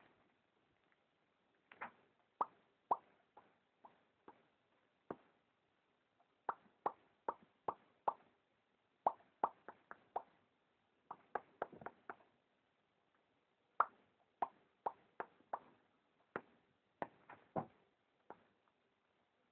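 Sleeping cat making short, sharp clicking pops in quick runs of several, a new run every few seconds.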